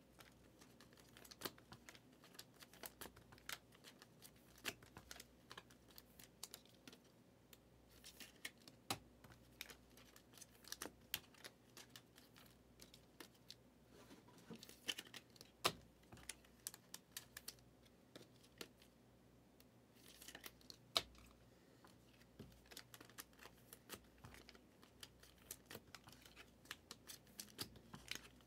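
Trading cards being sleeved and put into plastic cases: irregular light clicks, snaps and rustles of plastic sleeves and hard cases, a few louder snaps among them.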